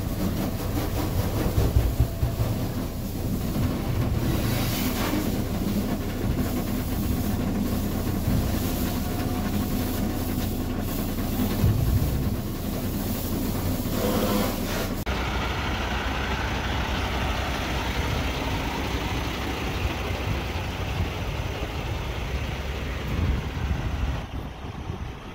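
Truck-wash water spray pounding on a semi-truck's windshield and cab, heard from inside the cab over the low steady hum of the idling diesel engine. About fifteen seconds in the high hiss of the spray drops away, leaving a steadier rushing wash.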